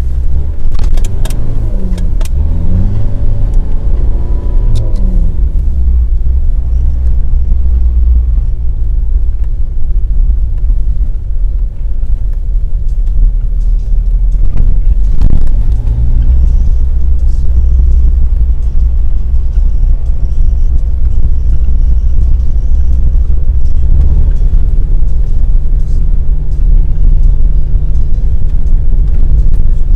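Off-road vehicle driving with its engine running as a loud, steady low rumble; the engine pitch rises and falls several times in the first few seconds.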